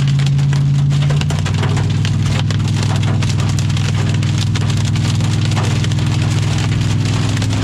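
Small hailstones ticking and clicking against the vehicle's body and windshield, heard from inside the cab over the steady drone of the engine and tyres. The engine note steps down about a second in.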